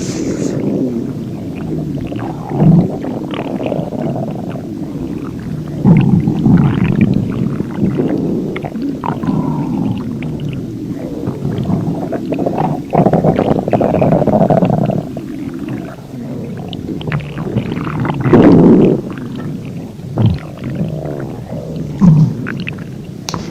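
A human stomach growling: a continuous run of low, gurgling growls that swells irregularly into louder growls several times.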